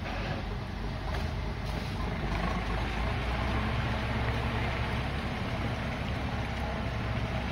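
John Deere tractor's diesel engine running steadily as it pulls a loaded trailer, a low rumble that grows a little louder about two seconds in.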